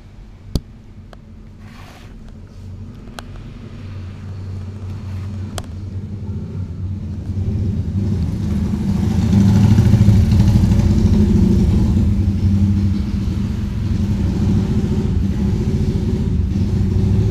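A motor vehicle engine running close by, growing louder over about six seconds and then staying loud and steady; a single sharp click about half a second in.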